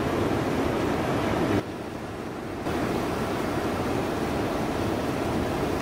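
Steady rush of large ocean waves breaking. About a second and a half in it drops quieter for about a second, then comes back.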